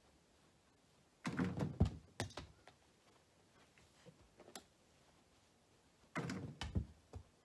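Knocks and thumps from a toddler moving about and bumping toys on the floor, in two short clusters: one about a second in, the other near the end.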